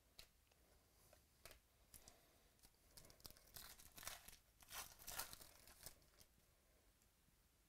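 Faint crinkling and tearing of a trading-card pack wrapper being opened and handled, in a run of short crackles that is busiest in the middle.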